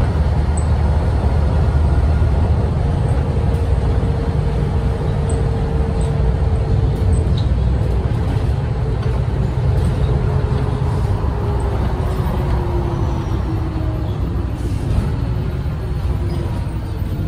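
Renault PR100.3 bus heard from inside the cabin while driving: its 9.8-litre turbocharged six-cylinder diesel and ZF automatic drivetrain run with a steady deep rumble. A faint whine falls in pitch near the end.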